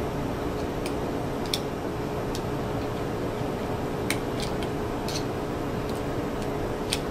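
Torque screwdriver with a hex bit tightening the small flange screws of a probe onto a millimetre-wave module: a few sharp, irregularly spaced clicks as the driver reaches its set torque, over a steady room hum.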